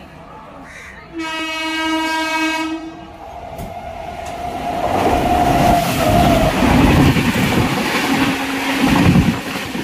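A train horn gives one long blast about a second in. Then the Yesvantpur-Howrah Superfast Express passes on the adjacent track, its coaches' wheels rushing and clattering over the rails, growing loud from about four seconds in and staying loud.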